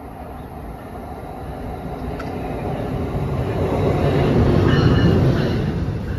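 NJ Transit Multilevel commuter train pulling into the station, its rumble and wheel noise growing steadily louder as it comes alongside the platform, with a faint high squeal at the loudest point.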